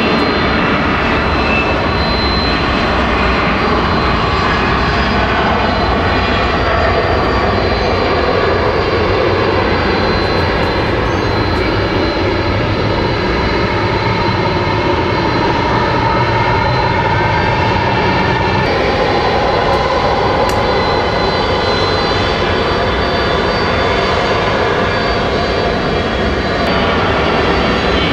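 Jet airliner engines at takeoff power: a loud, steady jet noise that changes character abruptly about two-thirds of the way through.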